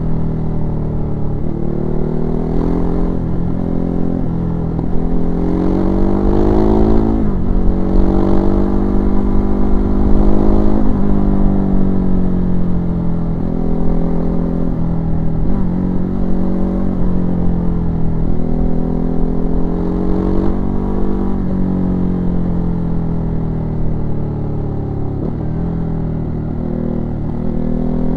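Ducati Hypermotard 939's 937 cc L-twin engine under way on the road, its revs climbing and dropping several times as the throttle is opened and closed, with a sharp drop about seven seconds in.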